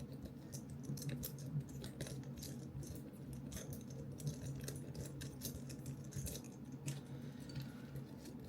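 Small irregular clicks and light rattles of metal and plastic camera-mount parts being handled and fitted together, over a steady low hum.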